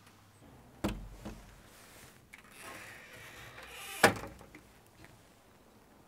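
Wooden door pulling shut with a thud about a second in, then rustling and a louder, sharper knock about four seconds in.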